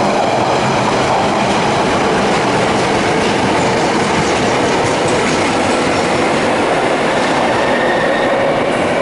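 Osaka Municipal Subway 30 series aluminium train pulling out of the station, its cars running past with a loud, steady rumble of wheels on rail.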